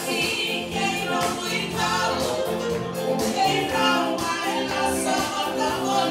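Live band playing through PA speakers: a woman singing lead into a microphone over keyboard and electric guitar.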